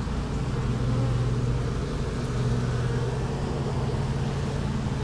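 Honeybees clustered outside the hive entrance buzzing in a steady, low hum that wavers slightly in pitch.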